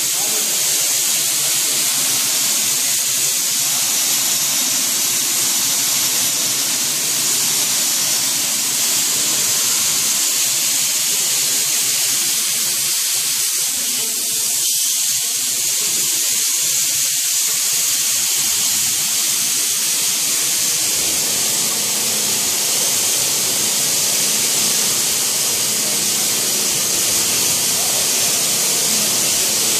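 Plaster spray gun on a Wagner PC 830 screw-pump plastering machine, hissing steadily as compressed air sprays plaster onto a concrete ceiling.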